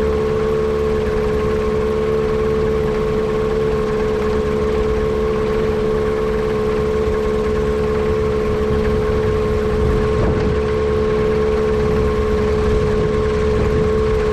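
Yamaha Apex four-cylinder four-stroke engine of a Kitfox airplane running steadily at one speed, with a strong steady hum. The engine is being checked for a misfire thought to come from a vacuum leak.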